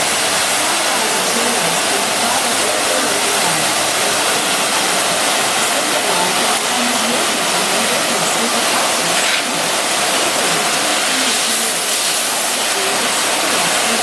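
Dolphin DCS rack-conveyor commercial dishwasher running: a steady, loud hiss of water spraying inside the wash tunnel.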